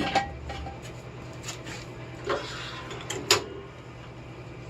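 Jack stands clanking as they are handled and set under the car: a few scattered knocks, the sharpest about three seconds in.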